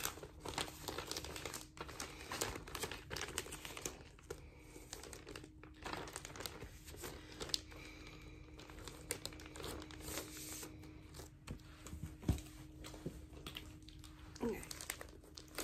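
Crinkling and rustling of a clear plastic outer sleeve as a vinyl record jacket is handled and slid back into it, going on in many short scrapes, with one sharp knock about twelve seconds in.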